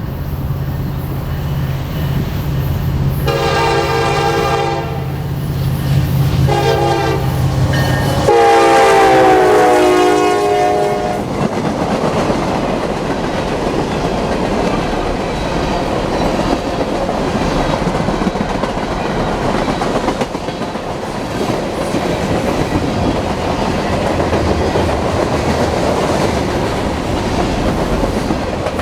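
Diesel freight locomotive approaching with its engine droning, sounding its horn in three blasts, the last the longest and dropping in pitch as the locomotive passes. Then the manifest train's freight cars rumble and clack steadily past over the rails.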